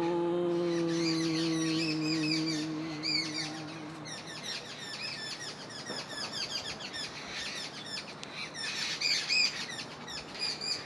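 A man's voice holds one long chanted note for about the first four seconds, wavering slightly before it stops. Small birds chirp and twitter throughout.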